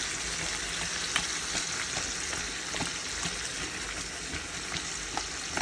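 Tomato sauce and meatballs sizzling steadily in a hot enamelled cast-iron casserole, with a few sharp clicks of a utensil stirring against the pot, the loudest about a second in.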